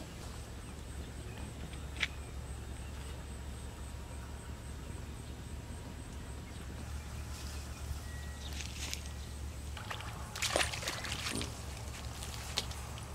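A steady low background hum, then near the end a short flurry of splashing as a catfish is hooked and yanked out of the pond water.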